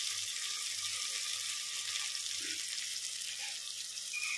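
Sliced onions sizzling steadily in hot oil in the bottom of a pressure cooker, left unstirred while they brown.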